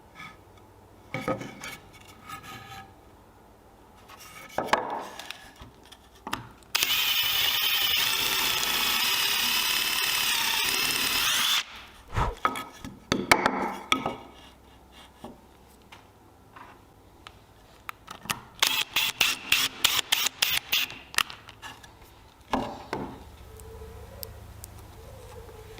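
Woodworking tool sounds: scattered knocks and scrapes, then a power tool running steadily for about five seconds, stopping abruptly. Later comes a quick run of about a dozen short strokes on wood, about five a second.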